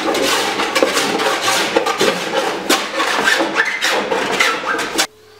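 Small Japanese wooden block plane, its sole rounded and blade curved, scraping back and forth over cedar strips in the concave stem of a wooden kayak hull: quick, uneven rasping strokes that cut off suddenly near the end.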